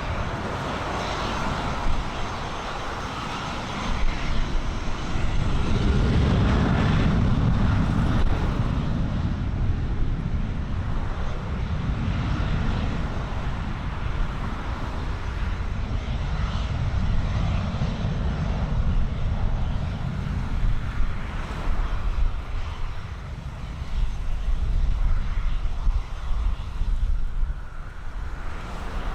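Aircraft engine running steadily, heard over uneven low rumble of wind on the microphone.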